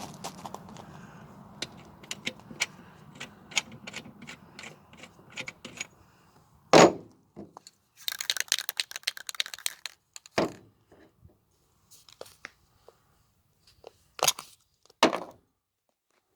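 Metal parts being handled and worked by hand: irregular clicks and knocks, with one loud knock about seven seconds in, then a second or two of quick scratchy rasping, and a few more single knocks near the end.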